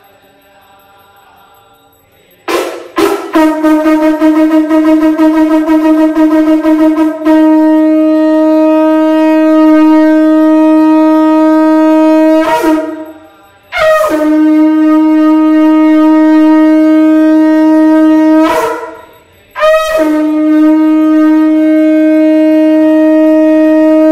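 Conch shell (shankh) blown in three long blasts, each one steady droning tone. The first lasts about ten seconds and wavers in loudness for its first few seconds before it steadies. The next two last about five seconds each, with a short break between them.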